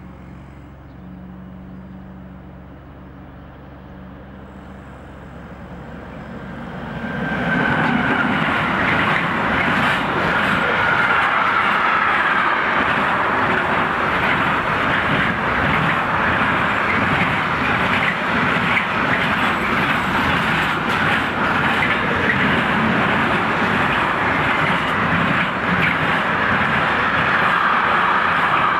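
Freight train of intermodal flat wagons carrying lorry trailers and containers passing close by at speed. A low hum at first, then about seven seconds in the sound jumps up to a loud, steady rumble and rattle of wagons over the rails, with a wavering high screech of wheels on top.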